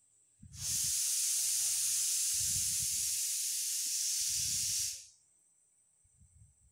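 A loud, steady hiss, starting abruptly about half a second in and dying away about five seconds in, with short low thumps underneath about every two seconds.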